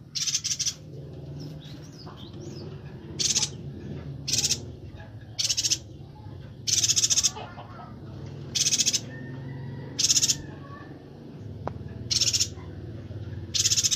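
Yuhina (perenjak batu) calling in a string of about ten short, rapid, chattering high bursts, each under a second and irregularly spaced, with a faint low steady hum underneath.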